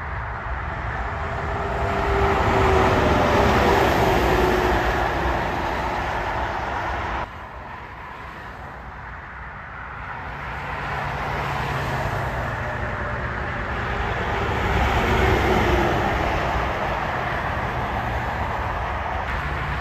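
Highway traffic with semi trucks passing close by: tyre and engine noise swells as each goes past, with a falling pitch as a truck passes about three seconds in and again around fifteen seconds. The level drops suddenly about seven seconds in.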